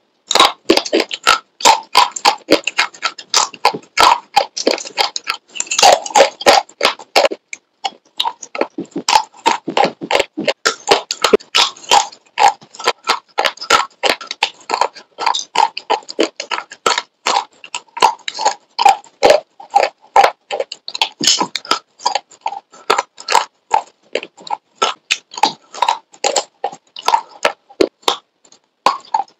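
Close-miked crunching of brittle slate chips bitten and chewed: rapid, sharp cracking and grinding between the teeth, several crunches a second, with a short lull about seven and a half seconds in.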